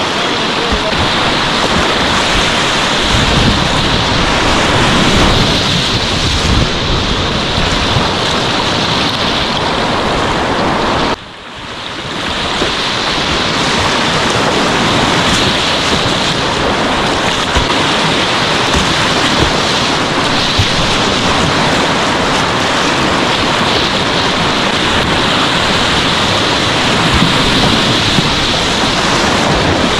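River whitewater rushing steadily, with the sound cutting out briefly about eleven seconds in and swelling back.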